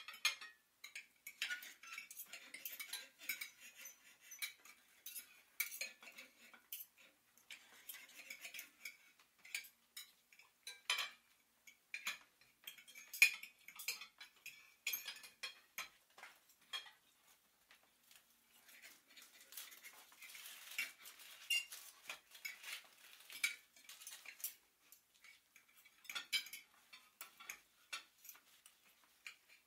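Quiet, irregular clinks and taps of cutlery and dishes, as when a table is being set.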